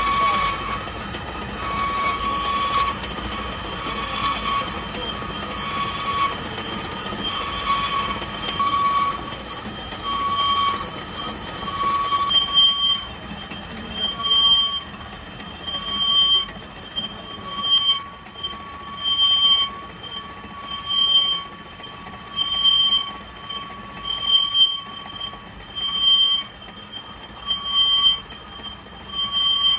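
Lathe boring tool cutting inside a bore with a pulsing high-pitched metal squeal. It repeats about once a second at first, then slows to about every one and a half to two seconds after some twelve seconds.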